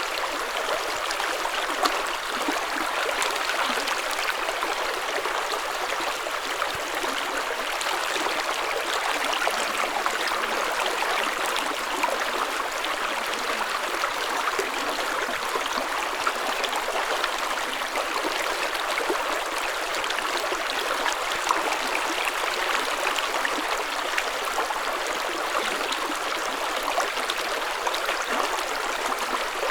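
Spring water flowing in a small stream: a steady babble with a dense patter of small splashes and trickles.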